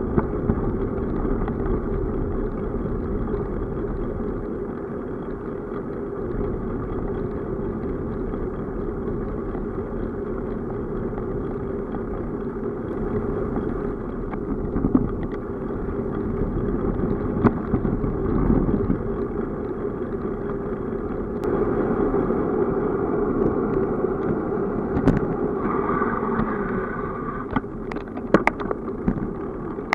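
Steady rumble of a bicycle ride heard from a camera mounted on the bike: tyres rolling on asphalt and wind on the microphone, with a few sharp clicks and rattles near the end.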